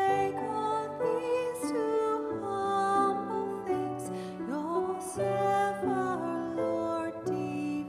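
A woman singing a solo song with grand piano accompaniment, her voice sliding between long held notes over sustained piano chords.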